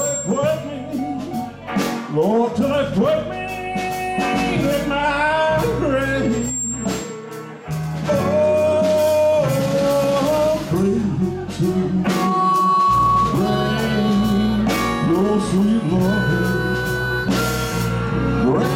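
Live blues band playing: wailing, bending harmonica lead over electric guitars, bass and drums.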